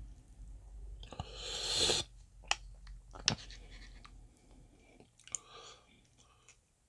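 Close-miked mukbang eating sounds over dumpling soup: chewing, a brief noisy rush about a second in, then several sharp utensil clicks.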